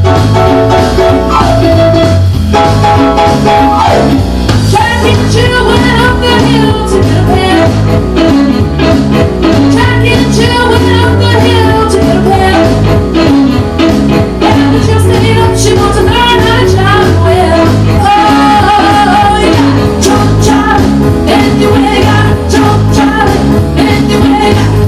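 Rock and roll song with electric guitar and a steady drum beat; a singer comes in about four seconds in and sings over the band.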